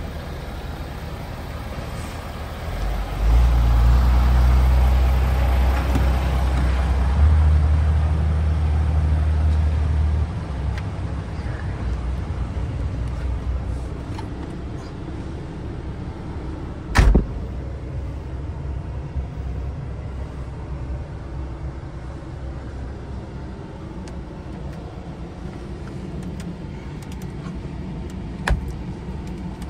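Diesel engine of a DAF XF480 tractor unit running with a steady low drone, much louder for several seconds near the start. One sharp knock about seventeen seconds in and a smaller click near the end.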